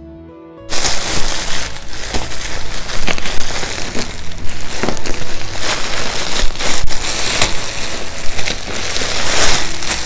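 Plastic packaging crinkling and crackling loudly as a black plastic mailer bag is cut open and pulled off a bundle of artificial chrysanthemums in clear plastic wrap. It starts abruptly about a second in.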